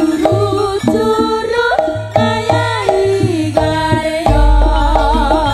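East Javanese jaranan music with a bass-heavy kendang drum pattern, the bass boosted for a sound check, under a melody that slides and wavers in pitch. A deep bass boom comes in near the end.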